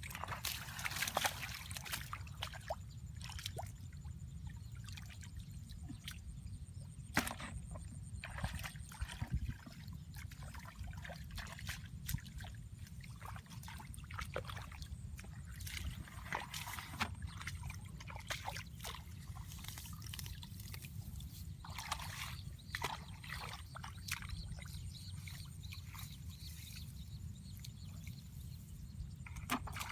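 Shallow water sloshing and splashing as it is worked through by hand while catching fish, with many short, irregular splashes and knocks over a steady low rumble.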